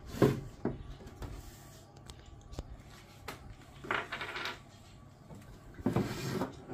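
Plastic handling noises from an RO purifier tank and its plastic tap being fitted back on: a few light clicks and knocks, then two short bursts of plastic rubbing and scraping, one near the middle and one near the end.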